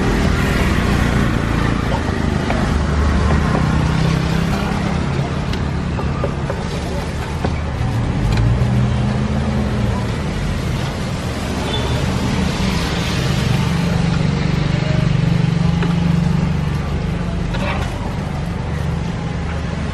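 Street traffic: motor vehicle engines running and passing, with a steady drone that rises and falls, and people talking indistinctly; a few faint short knocks.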